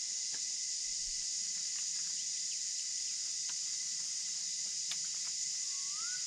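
A steady, high-pitched insect chorus with a faint steady tone running under it. Near the end a single bird whistles, rising, and a few faint ticks sound along the way.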